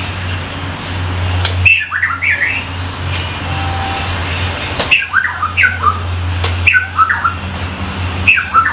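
A white-rumped shama (murai batu) calling: four short, loud, pitch-bending phrases a couple of seconds apart, each opening with a sharp click. A steady low hum runs underneath.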